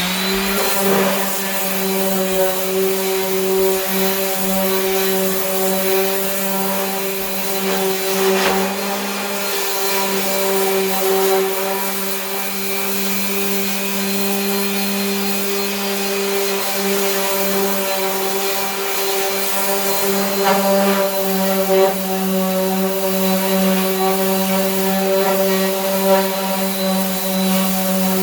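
Power sander spinning up and then running at a steady pitch, sanding cured body filler on a truck fender, with the hiss of the abrasive against the panel.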